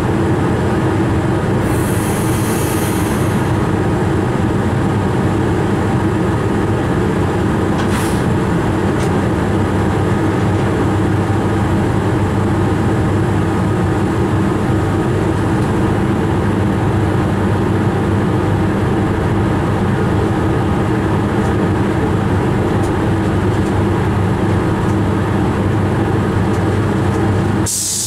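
Steady running noise inside an electric locomotive's cab, a constant hum of several low tones under a rushing noise. A short hiss comes about two seconds in and another at the very end, with a sharp click about eight seconds in.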